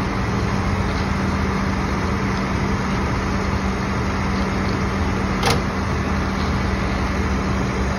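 Flatbed tow truck running steadily with a constant hum while its loaded bed is lowered back to level. A single sharp click comes about five and a half seconds in.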